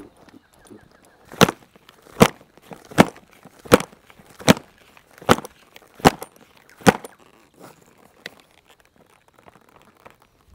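A hand patting a saddled horse firmly: eight sharp, evenly spaced slaps a little under a second apart, starting about a second and a half in.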